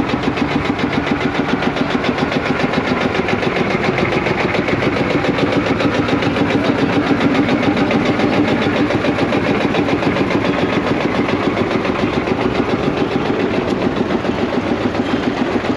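Single-cylinder two-stroke diesel engine of a vintage Field Marshall tractor running at a steady idle, with a fast, even beat.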